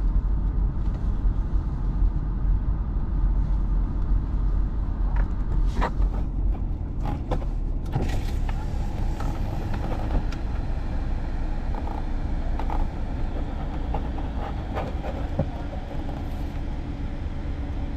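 Car's engine and tyre rumble heard from inside the cabin as the car rolls slowly forward. A few light clicks or knocks come about six to eight seconds in.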